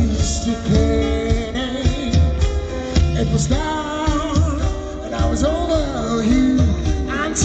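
Loud music with a singing voice over a heavy beat.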